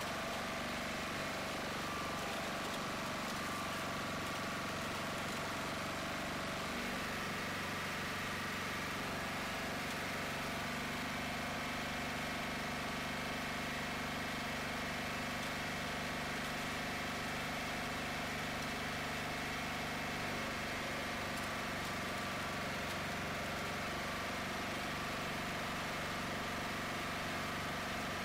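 An engine running steadily at an even pitch, settling to a slightly different steady speed about seven seconds in.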